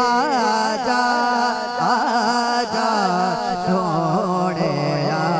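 A man singing a naat in Punjabi: one long, ornamented phrase that bends up and down in pitch, over a steady low hum held beneath it.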